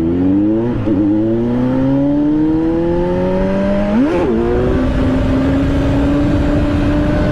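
Kawasaki Z900's inline-four engine pulling hard under acceleration, its pitch climbing through the gears, with two upshifts, about a second in and about four seconds in. Wind rush on the helmet microphone grows as the speed rises.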